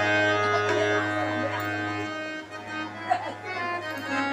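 Harmonium playing the instrumental introduction of a devotional bhajan, with sustained reed chords over a steady low drone and a short sharp hit about three seconds in.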